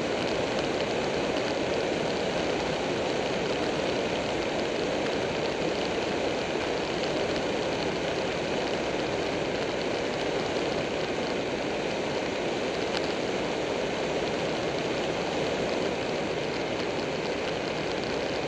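Buell 1125R V-twin sport bike cruising at a steady speed: a constant rush of wind and road noise with the engine running underneath, unchanging throughout.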